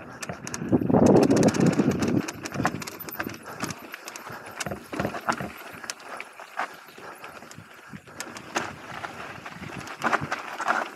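Mountain bike clattering over a rough dirt trail: irregular sharp knocks and rattles from the bike on the bumps, with a loud rush of noise from about half a second to two seconds in.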